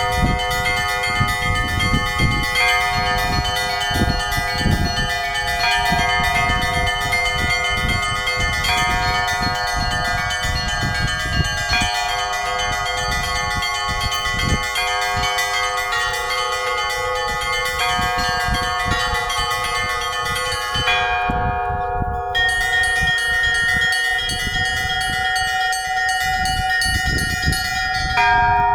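Several church bells rung together, strokes overlapping into one continuous peal of many pitches. The smallest, highest bells pause briefly about three-quarters of the way through, then come back in.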